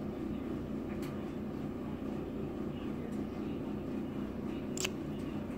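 Steady low background hum with a few small sharp clicks, the sharpest near the end.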